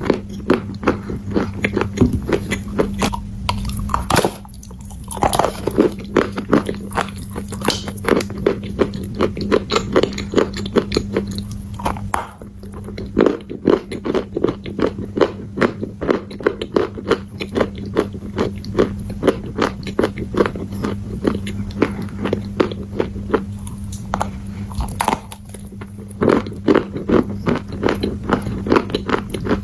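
Close-miked crunching and chewing of dry edible clay ('Clay Amber'): big bites snapping off, then rapid runs of crunches as it is chewed, with a few brief pauses. A steady low hum runs underneath.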